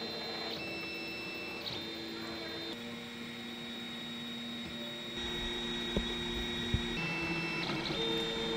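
Desktop 3D printer printing a part: its stepper motors whine as the print head moves, the pitch jumping to a new steady note every second or so as the moves change speed and direction. Two short clicks come a little after the middle.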